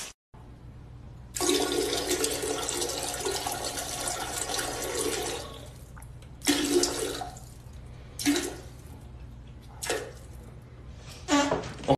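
A toilet flushing: a loud rush of water starts about a second in and lasts about four seconds. A few shorter bursts of noise follow.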